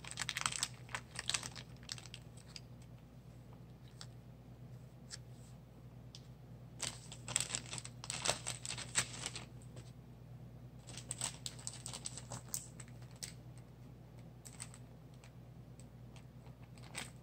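Small clear plastic bag crinkling and crackling as it is handled, in a few short spells: near the start, about seven seconds in, and again around eleven to thirteen seconds. A faint steady low hum sits underneath.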